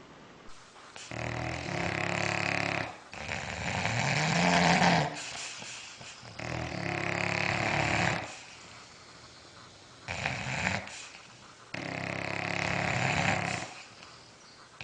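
A dog snoring: five long snores, each about one to two seconds, with short pauses between them.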